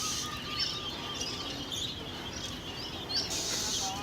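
Many small caged birds chirping at once, short high chirps scattered over steady background noise.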